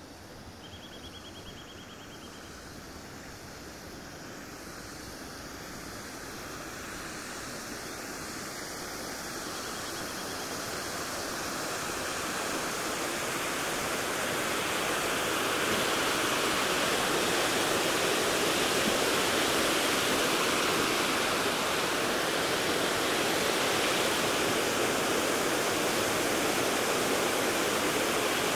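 Water pouring down a sloping stone weir on a small stream: a steady rushing that grows louder through the first half as it comes nearer, then holds level.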